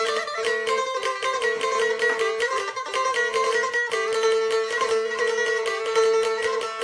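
Background music played on a plucked string instrument, with rapid, even picking that stays mostly on one repeated note.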